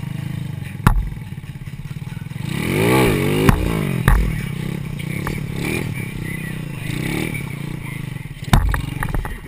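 Small stunt motorcycle's engine running and revving up and down, with the biggest rev about three seconds in. Sharp knocks and clatter about a second in, with the rev's peak, and again near the end.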